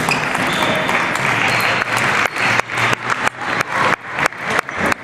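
Applause from spectators, giving way about two seconds in to a quick, regular tapping of about three sharp clicks a second.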